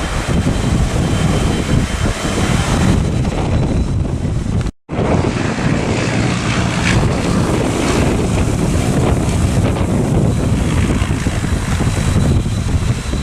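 Strong wind buffeting the microphone, a loud steady rushing roar with a faint high whine behind it. The sound cuts out completely for a moment about five seconds in.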